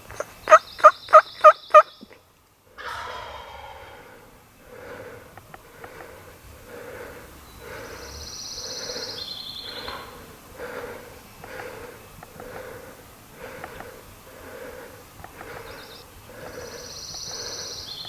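A wild turkey gobbler gobbles loudly at close range about half a second in: one rapid rattling run of about six pulses. Afterwards a person breathes softly and rhythmically, about once a second, close to the microphone. A high bird call that steps down in pitch comes twice.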